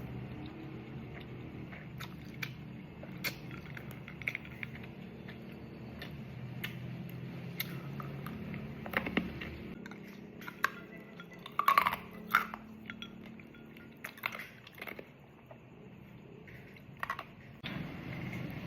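Close-up eating sounds of cold soba noodles: chewing, with scattered sharp clinks of chopsticks or utensils against dishes, a few louder ones near the middle, over a steady low hum.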